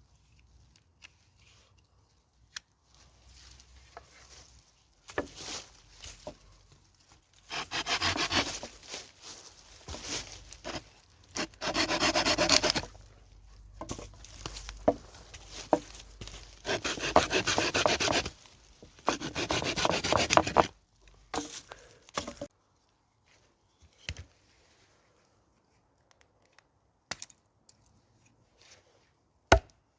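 Firewood being cut with a hand saw: four spells of quick rasping strokes with short pauses between them, followed by a few scattered knocks of wood, one sharp knock near the end.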